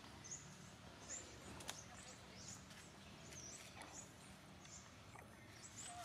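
Faint, short, high-pitched animal chirps repeating about once or twice a second over a low background hiss, with an occasional faint click.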